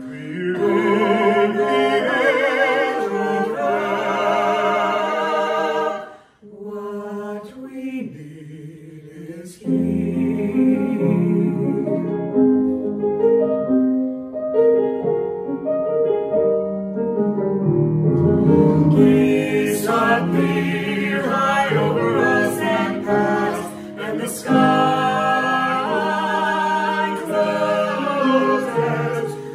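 A small mixed vocal ensemble of men's and women's voices singing a choral piece in parts. The singing breaks off briefly about six seconds in and resumes softly, lower voices come in around ten seconds, and the full group swells again from around nineteen seconds.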